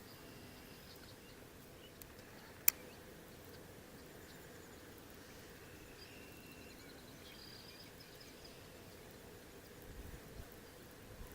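Quiet outdoor ambience with faint, scattered bird chirps, broken by one sharp click about two and a half seconds in and a brief low rumble near the end.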